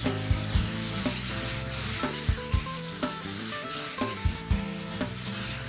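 Sandpaper rubbing over a dried spackle patch on drywall: a steady scratchy rasp that stops abruptly at the end. Background music with a drum beat plays under it.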